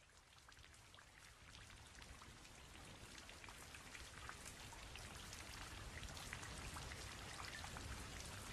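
Rain falling, a soft hiss with the patter of many drops, slowly swelling from faint.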